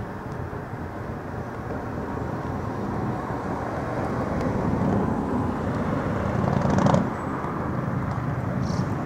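Steady outdoor vehicle rumble that swells as a vehicle passes, loudest about seven seconds in, then falls off sharply.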